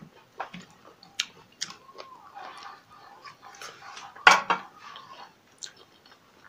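Eating sounds at close range: chewing, and fingers tearing pork rib meat and tapping on a plate, a scatter of small clicks and taps. One sharper click about four seconds in is the loudest sound.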